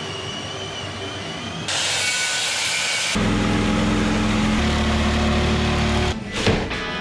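A soldering torch hissing, then a corded reciprocating saw running for about three seconds as it cuts through wood framing, followed by a few sharp knocks near the end.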